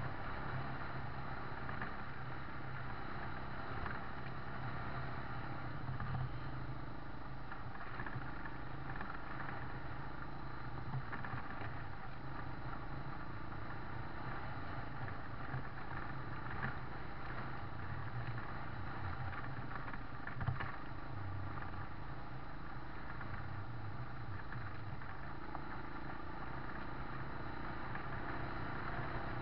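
A motor vehicle's engine runs steadily at low speed, heard from on board, with rattling and road noise from a rough dirt track. There is one sharp knock about two-thirds of the way through.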